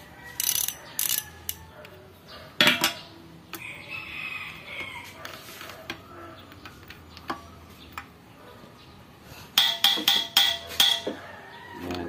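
Metal clicks and clinks of a socket wrench working a nut on the metal housing of a truck gearshift servo held in a vise. There is a sharp click under three seconds in and a quick run of ratcheting clicks near the end.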